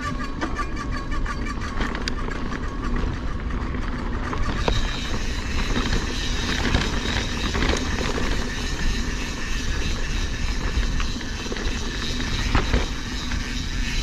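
Mountain bike riding over rocky jeep-trail ground: tyres and frame rattling over rock, with a steady low rumble of wind on the microphone. A regular ticking runs through the first four seconds or so, then gives way to a rougher, uneven rattle.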